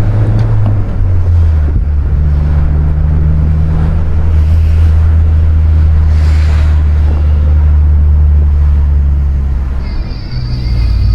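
A 2020 Honda Civic Si's turbocharged 1.5-litre four-cylinder engine running with a steady low drone as the car drives, its note dropping to a lower pitch about a second in and then holding steady.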